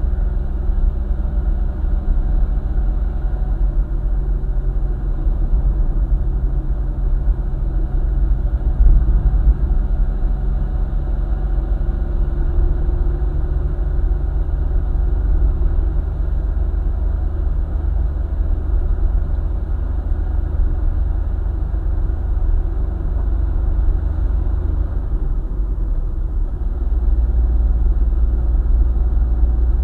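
Car driving on a highway: a steady low rumble of engine and road noise, with the engine tones shifting about twelve seconds in and again near the end.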